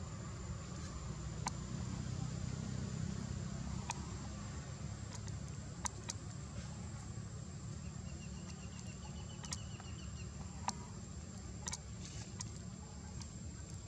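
Outdoor ambience: a steady low rumble with a thin, continuous high-pitched whine over it and scattered sharp clicks, plus a brief run of rapid chirps about two-thirds of the way through.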